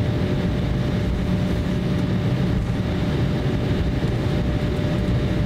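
Steady cabin noise inside an Embraer E170 jet taxiing after landing: a low, even rumble from the airframe and engines at taxi power, with a faint steady whine.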